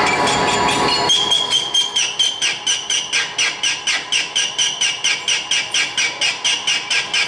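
A metal lathe turning a rough crankshaft, the cutting tool squealing in short, evenly spaced pulses about four or five times a second from about a second in. Each squeal comes as the spinning crank's webs meet the tool once per turn: an interrupted cut.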